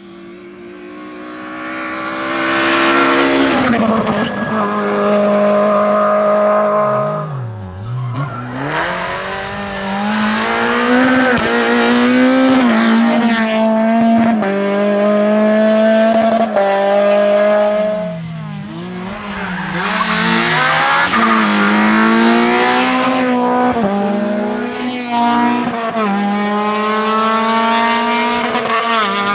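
Rally hatchbacks' petrol engines driven hard past the roadside: the note builds as a car approaches, revs climb through the gears, and drop sharply twice, near 7 seconds and again near 18 seconds, as the car brakes and downshifts before accelerating again.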